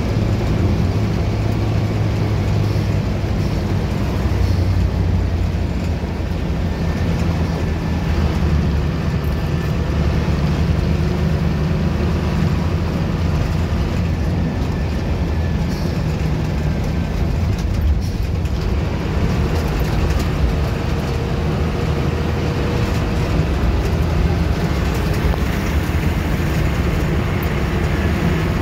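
Moving bus heard from inside its cabin: a steady deep engine drone with road and rattle noise, holding an even pace throughout.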